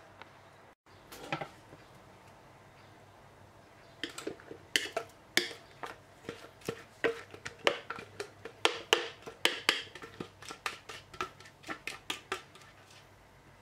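A plastic spatula scraping and knocking against the inside of a stainless-steel Thermomix mixing bowl, in a run of short strokes about two a second, as thick ice cream mixture is scraped out into a ceramic dish.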